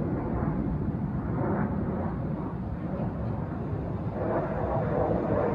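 Jet aircraft of an aerobatic display team flying overhead: a steady, distant jet-engine rumble that grows louder about four seconds in.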